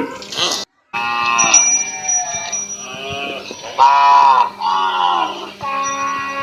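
Cattle mooing: a string of short calls that rise and fall in pitch, one after another, with a louder call about four seconds in. The sound drops out completely for a moment just under a second in.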